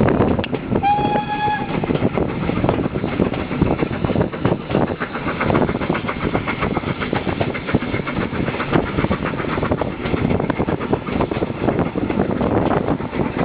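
A steam locomotive's whistle sounds once, a single held note of about a second, near the start. Under it and throughout runs the steady rumble and clatter of the carriage wheels on the rails.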